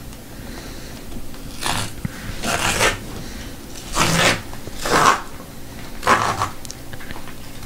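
Tear strip being ripped along the edge of a large cardboard mailer, in five short pulls about a second apart.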